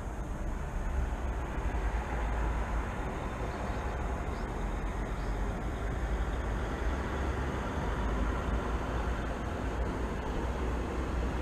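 Steady low rumble of distant city traffic, with two faint, short, high chirps around the middle.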